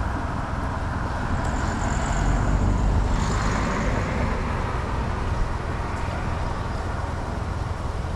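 Road traffic going by, a steady rumble of passing cars, with one vehicle passing louder about two to four seconds in.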